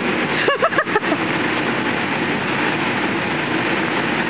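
Steady rushing noise of an inflatable bounce house's electric blower, with a few brief high-pitched voice sounds about half a second to a second in.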